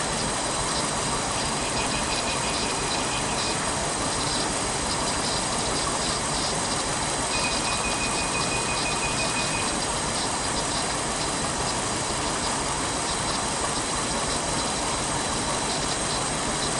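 Four-cylinder gasoline engine idling while misfiring on one cylinder, the cause of its lost power and vibration. Twice a steady high beep sounds for about two seconds: an inductive injector probe held against injectors that are being driven.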